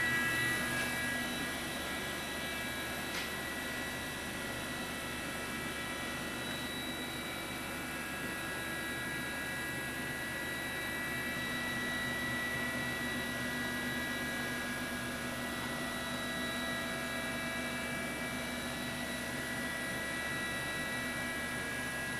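Homemade Joe's CNC 4x4 hybrid router with rack-and-pinion drives running, a steady mechanical whine made of several held tones that fade in and out, over a constant hiss.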